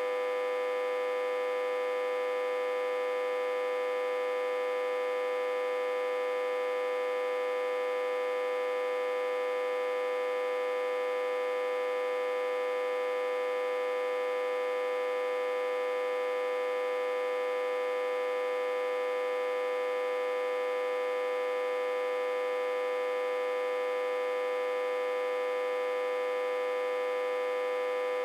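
Autotransformer humming steadily, reverse-connected to a step-down transformer and fed about 60–80 V. One unchanging buzzy tone with many overtones, strongest around 500 Hz.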